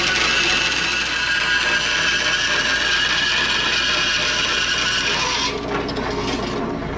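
Band saw cutting through a plate: a steady rasping noise with a high ringing tone, which stops about five and a half seconds in.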